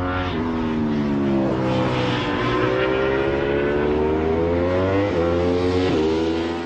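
Motorcycle engine revving, its pitch gliding up and down with several small breaks along the way, then cutting off abruptly.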